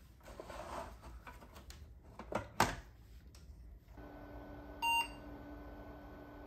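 Handling noises from an open 386 desktop case: rustling and a few sharp clicks, the loudest about two and a half seconds in. About four seconds in the machine is running with a steady hum, and about five seconds in its PC speaker gives one short beep, the POST beep of a successful boot.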